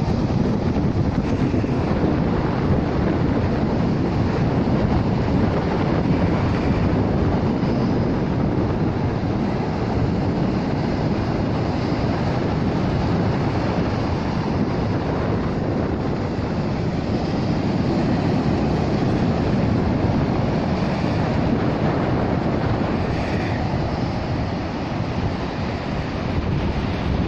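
Wind buffeting the microphone in a steady low rumble, over ocean surf washing onto the beach.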